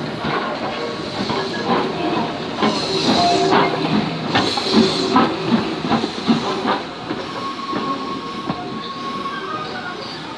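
LMS 'Crab' 2-6-0 steam locomotive No. 13065 moving slowly past at close range, with clanking and knocking from its wheels and motion. There are two louder spells of steam hissing about three and four-and-a-half seconds in.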